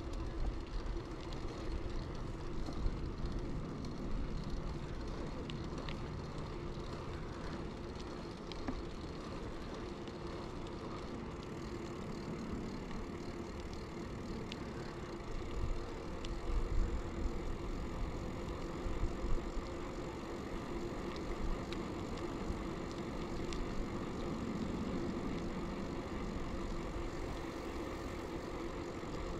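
Early-1990s Bianchi Alante mountain bike riding along, with steady rolling road noise, a faint steady hum and scattered light ticks, and a louder rumble about halfway through.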